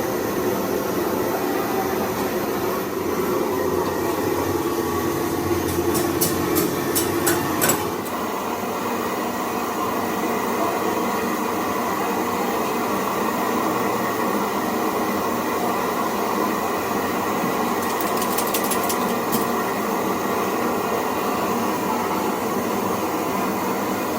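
Machinery running with a steady noise, with two short runs of rapid sharp ticks, about six seconds in and again about eighteen seconds in.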